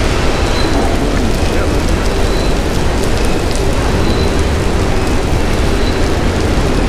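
Heavy rain falling, a loud constant rushing hiss with a low rumble underneath.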